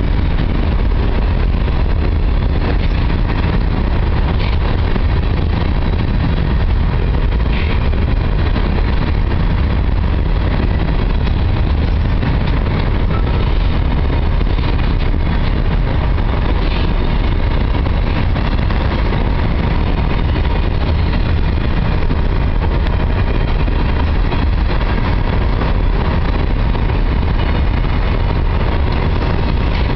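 Freight train of covered hopper cars rolling past close by. Its steel wheels rumble and clatter steadily on the rails, with no horn.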